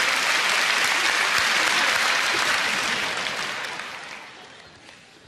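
Theatre audience applauding, the clapping fading away over the last second or two.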